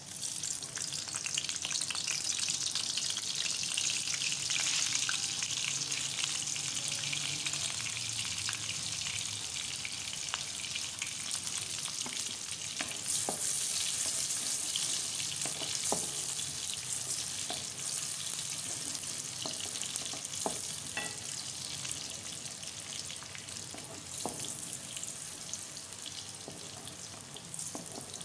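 Sliced onions sizzling as they fry in hot oil in a pan, easing off slightly toward the end, with occasional clicks and scrapes of a wooden spatula stirring them.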